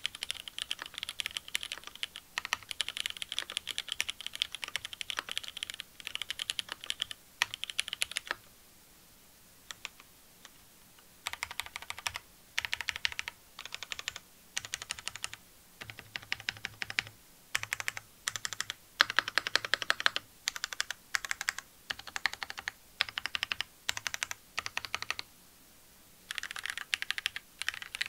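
Lin Triple A custom mechanical keyboard with lubed Cherry MX Black linear switches on an aluminium plate and GMK Shoko keycaps being typed on: steady clacking for about eight seconds, a short pause, then a string of brief bursts of repeated key presses, some with a deeper thock.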